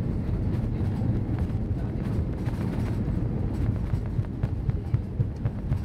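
Airbus A319-111 cabin noise as the airliner rolls on the ground after landing: a steady deep rumble with irregular knocks and jolts, which come more often in the second half.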